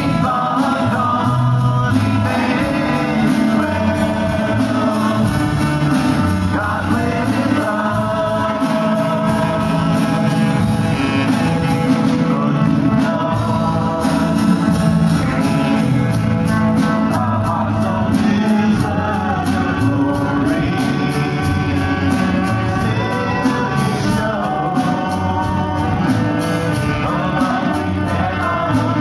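Live worship band playing a congregational worship song: several male and female voices singing together into microphones over strummed acoustic guitars.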